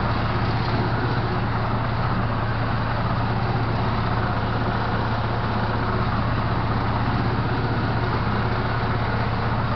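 Ursus C-330 tractor's two-cylinder diesel engine running steadily under load while mowing, heard from inside the cab.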